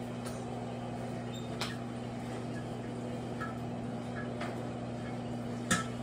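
Microwave oven running with a steady low hum. A few faint sharp clicks come through it, the clearest just before the end, as the Vaseline inside heats and pops.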